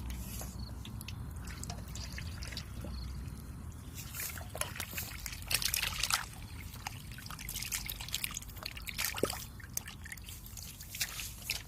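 Water trickling and dripping, with irregular small splashes that come thickest in the middle.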